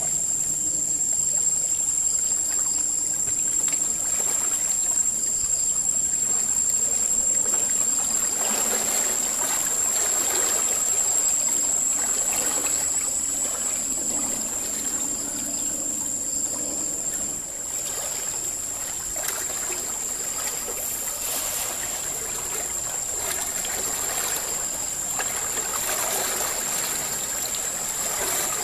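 Fast-flowing canal water rushing and swirling, swelling in the middle and easing off later, with a steady high-pitched whine over it.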